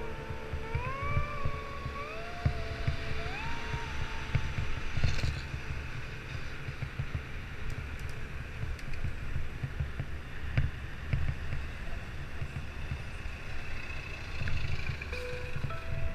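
Wind buffeting the microphone of a camera on a moving bicycle, over the rumble of city traffic. In the first few seconds a vehicle's motor note rises in steps as it accelerates.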